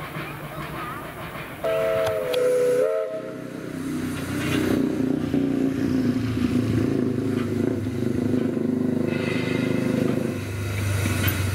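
A steam locomotive's whistle sounds once, several notes at once, for about a second and a half, starting abruptly about two seconds in. After a break, the steady sound of a narrow-gauge steam locomotive working follows.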